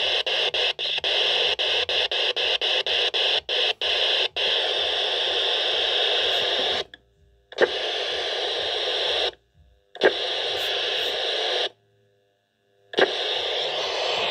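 Eurosonic Ultimate handheld CB radio hissing static through its speaker. The hiss breaks into a rapid run of short cut-outs over the first few seconds. Later it cuts out three times for a second or so, each time returning with a sharp crack.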